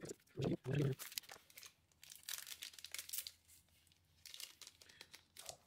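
Trading-card booster-pack wrappers crinkling and tearing as packs are opened, in short irregular crackles.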